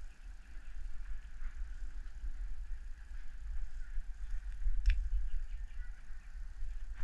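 Fishing reel being wound in steadily with a fish hooked on the line, over a low rumble of wind and handling on the microphone, with one sharp click about five seconds in.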